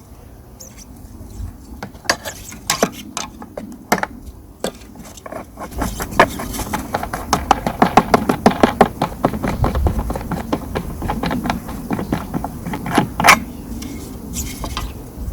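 Small metal parts clicking and clinking as the blade nut on the hover mower's fan is undone with a spanner and the metal blade and spacer washers are taken off: a few scattered clicks at first, then a long run of quick clicking through the middle.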